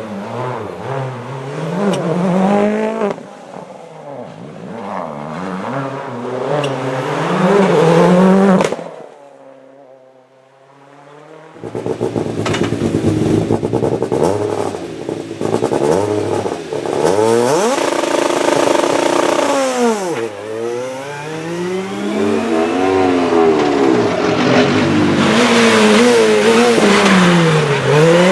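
Rally car engines revving hard and shifting through the gears, the pitch repeatedly climbing and dropping. About nine seconds in the sound cuts to a quieter, steadier engine note, and about two and a half seconds later it returns just as loud.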